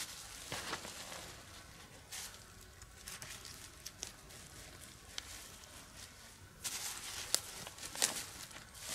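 Rustling of tarp fabric and dry leaf litter with scattered scuffs, as a tarp's bottom edge is handled and its guy lines staked down with pegs. A few short sharp snaps or clicks come near the end, the loudest sounds here.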